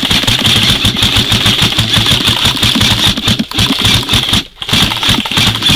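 Airsoft electric gun firing full-auto bursts: a fast, loud mechanical rattle of the gearbox cycling, many shots a second. It breaks off briefly about three and a half and four and a half seconds in.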